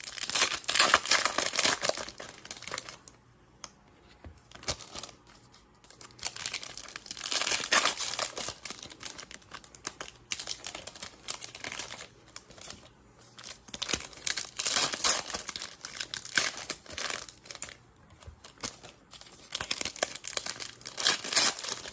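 Baseball-card packaging being torn open and crinkled by hand, in four bursts of rustling a few seconds apart.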